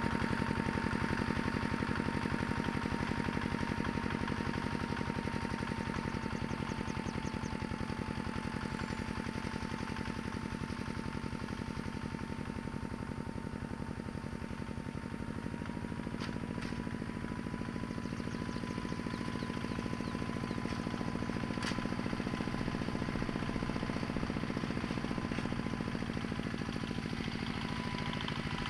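Homemade mini tractor's small engine running steadily, with a fast even beat and a thin steady whine.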